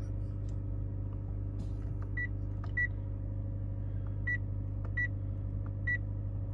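Short high electronic beeps, five of them at uneven intervals starting about two seconds in, over a steady low hum inside a parked Mitsubishi Outlander PHEV.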